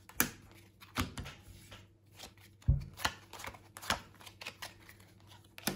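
Playing cards being handled and moved between piles: a crisp card snap or tap every second or so, with one duller knock about two and a half seconds in.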